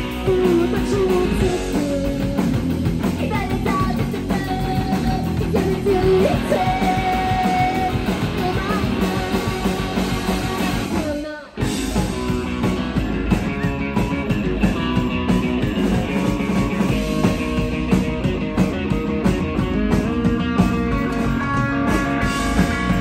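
Live rock band playing loud electric guitar, bass guitar and drums. The band drops out for a moment about halfway through, then comes back in at full volume.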